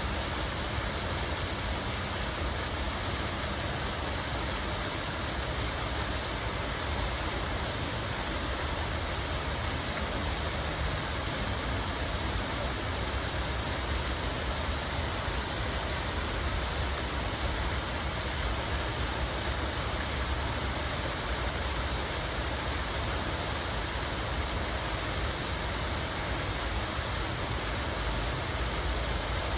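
Water running and splashing steadily, a constant even rush with a low rumble underneath.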